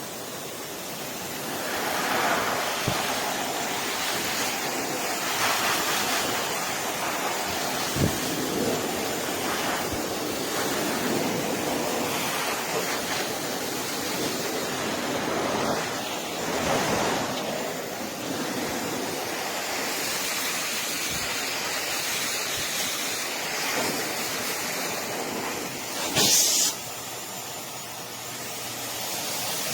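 CHAOLUN high-velocity pet dryer blowing air in a steady rush, the level swelling and dipping a little, with a brief louder burst of noise near the end.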